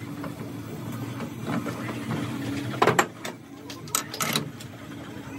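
Metal lathe running with a steady low hum. Sharp metallic knocks come about three seconds in and again in a short cluster around four seconds, from the tailstock and chuck being handled.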